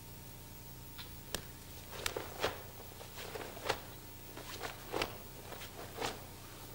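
Cloth of a karate gi swishing and snapping in short irregular strokes, with bare feet shifting on the floor, as a kata is performed; a sharp click sounds about a second and a half in.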